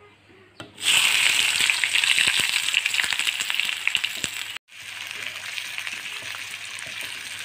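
Chopped onion and green chillies dropped into hot oil with cumin seeds in a kadai, sizzling and crackling loudly about a second in. After a brief break the frying goes on more quietly as they are stirred with a spatula.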